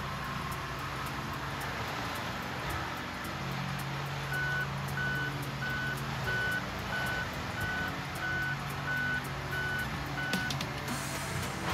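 Heavy forestry machine's engine running steadily. About four seconds in, its backup alarm starts beeping about every two-thirds of a second, and it stops near the end.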